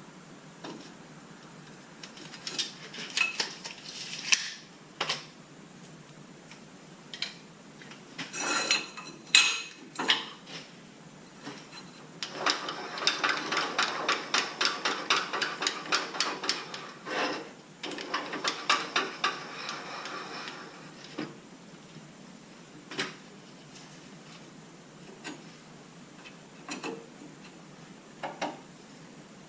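3/4-inch EMT steel conduit being cut to length and handled: scattered metal clinks and clanks, with two spells of quick, even strokes, about four a second, starting about twelve seconds in and again about eighteen seconds in.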